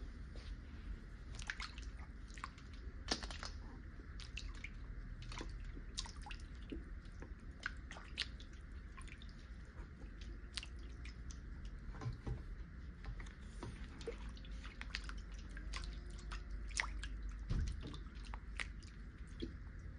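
Small drips and splashes of shallow water as hands swish a bundle of hair extensions through a salon shampoo bowl, scattered irregularly over a steady low hum.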